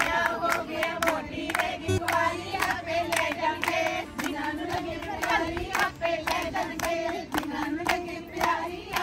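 A group of women singing together and clapping their hands in a steady rhythm, about three claps a second.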